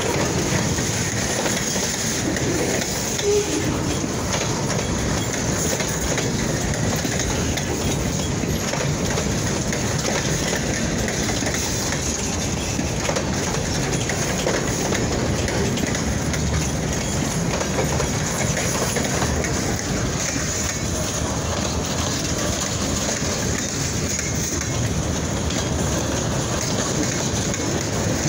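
Freight train rolling past, a steady rumble of railcars with wheels clicking over the rail joints.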